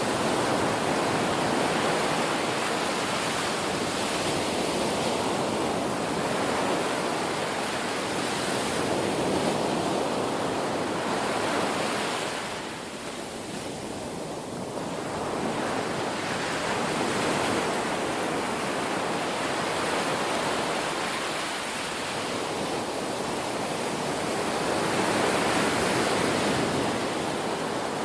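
Ocean waves breaking and washing on a shore, a continuous surf wash that swells and ebbs slowly, easing off briefly about halfway through.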